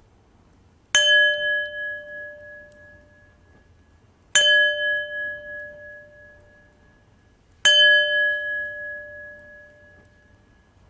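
A bell struck three times, about three and a half seconds apart. Each stroke rings out clearly and fades slowly, the three rings alike in pitch.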